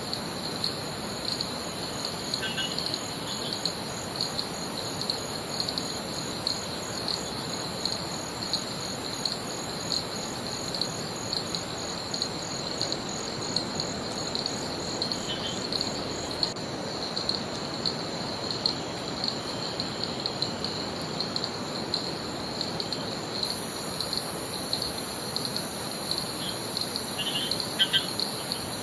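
Tropical rainforest insect chorus: a steady, pulsing high buzz of crickets or similar insects over an even background hiss, with a few short bird chirps. The highest buzz grows louder about two-thirds of the way through.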